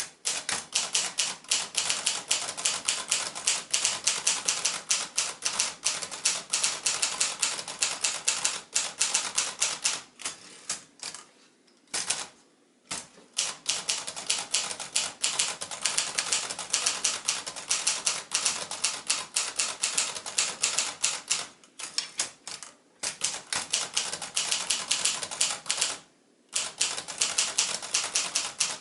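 Keys of a 1966 Consul ultraportable manual typewriter (Baldwin-badged) being typed in fast, steady runs of clacking strikes, with a few short pauses.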